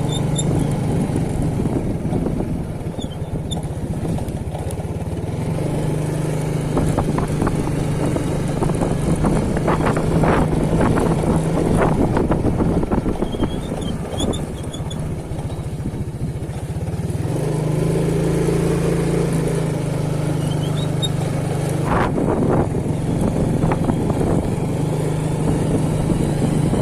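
Wind blowing hard across the microphone: a continuous low rumble that surges in gusts, with a steady low hum underneath.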